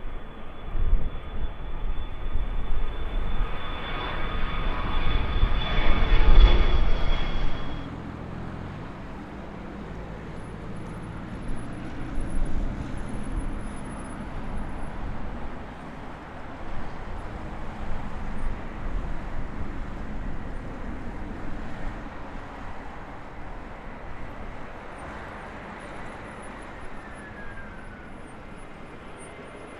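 Jet airliner passing close, engine whine and rumble building to a peak about six seconds in, then cutting off abruptly about two seconds later. A quieter, steady jet rumble follows.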